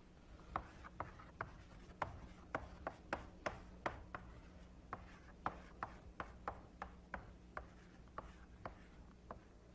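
Chalk writing on a chalkboard: a string of faint, irregular chalk taps and strokes, about two a second, over a faint steady hum.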